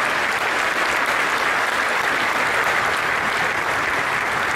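Audience applauding in a hall: dense, even clapping.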